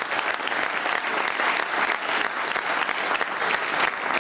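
Studio audience applauding: many people clapping together at a steady level, welcoming a guest.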